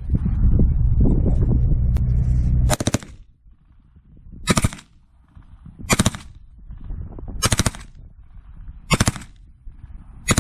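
Heckler & Koch MP5 9mm submachine gun firing a continuous full-auto burst for about two and a half seconds. Then come sharp single shots, about one every second and a half.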